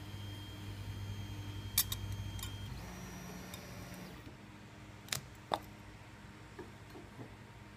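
A small motor's steady hum and faint whine that shifts to a different pitch partway through, then stops. There are a few sharp clicks: two together about two seconds in and two more near the middle.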